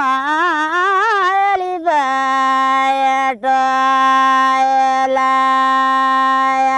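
A woman singing solo in the Nepali Thadi bhaka folk style: a wavering, ornamented phrase, then from about two seconds in one long, steady held note that breaks briefly about three and a half seconds in and holds on again.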